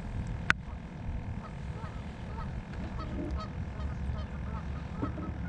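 Geese honking faintly in a short scattered series of calls over a steady low rumble. There is a single sharp click about half a second in.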